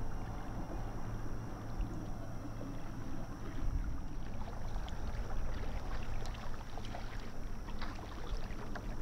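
Lake water lapping, with small splashes and drips that grow more frequent about halfway through, over a low steady rumble of wind.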